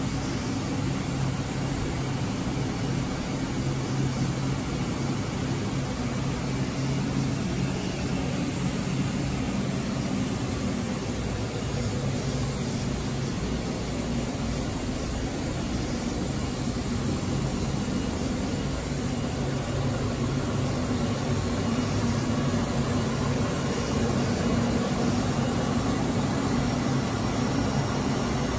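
Steady idle hum of a powered-up WFL M35-G Millturn CNC turning centre, its hydraulic unit and cabinet cooling running: a low drone over an even hiss, a little louder near the end.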